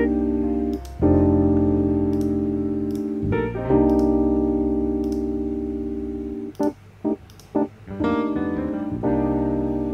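Background music: slow piano chords, each held and fading before the next is struck, with a few short separate notes about two-thirds of the way through.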